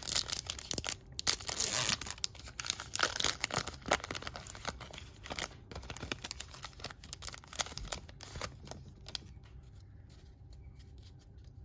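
A foil Topps baseball card pack being torn open and its wrapper crinkled, loudest in the first two seconds, then scattered crinkling and rustling that thins out toward the end.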